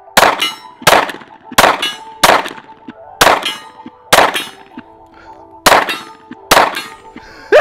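Glock 43X 9mm pistol firing eight shots in a steady string, most under a second apart with a couple of longer pauses. Each sharp crack is followed by a short ringing tail.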